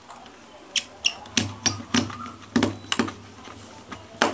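About eight sharp, irregular clicks and taps of small hard parts being handled on an opened mobile phone, with a faint low hum underneath from about a second and a half in.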